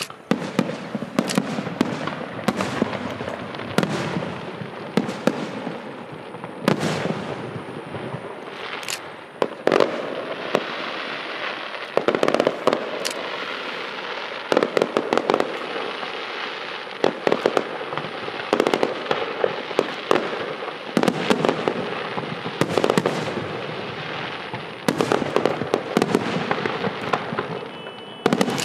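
Fireworks display: a steady run of sharp bangs, about one or two a second, over continuous crackling.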